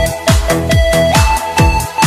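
Electronic dance music with a fast, steady kick-drum beat of about four beats a second under sustained synth notes.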